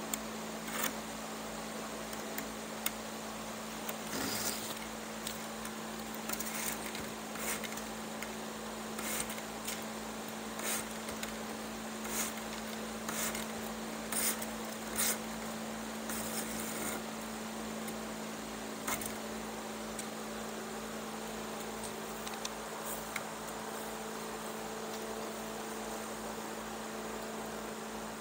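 A strand of chair cane rustling and scratching in short pulls as it is drawn diagonally through a hand-woven cane seat. A steady hum runs underneath.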